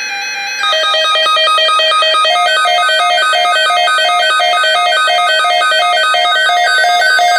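Midland WR-300 weather radio sounding its advisory/statement alert tone: a steady tone, then about half a second in a fast, repeating series of electronic beeps alternating between pitches.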